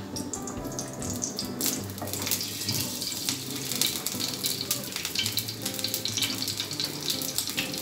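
Olive oil crackling and sizzling in a preheated frying pan, a dense spatter of small pops that builds up about two seconds in and keeps going.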